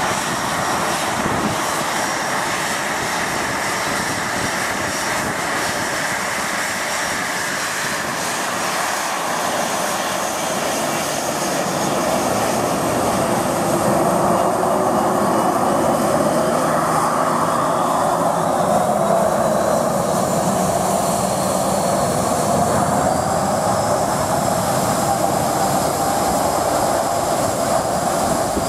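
Twin jet engines of a Boeing 737 running at taxi thrust, a steady whine over a rumble. The sound grows louder from about halfway through as the aircraft swings round.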